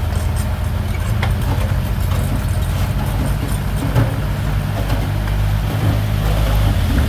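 Diesel engine of heavy earthmoving equipment running steadily, with a few metallic clicks and one louder knock about four seconds in.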